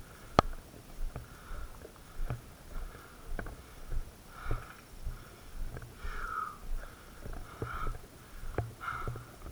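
A person breathing close to the microphone, with a breath about every one and a half seconds, over soft low thumps. One sharp click comes about half a second in.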